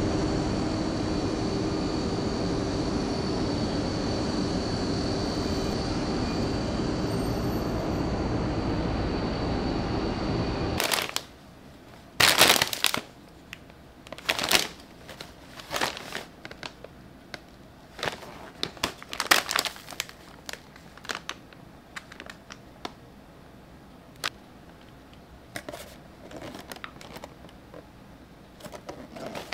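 Steady city street noise with traffic for about the first eleven seconds. It stops abruptly, and after it comes the intermittent crinkling and rustling of plastic snack bags and cardboard boxes being handled.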